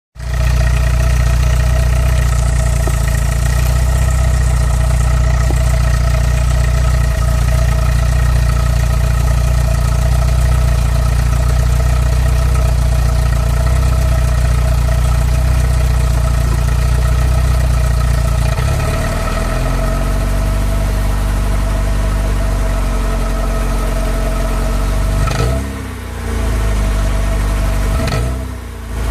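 Volkswagen Golf Mk2 GTI 8-valve 1.8-litre four-cylinder on its stock exhaust, running at a steady fast idle just after a cold start. About two-thirds of the way in, the idle drops to a lower note. Near the end the engine note dips and swings twice, briefly.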